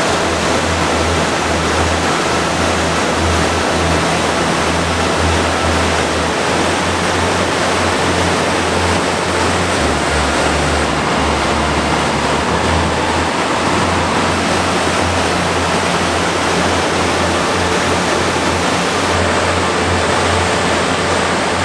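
South Fork Yuba River running high after weeks of rain: a loud, steady rush of rapids with a low rumble underneath.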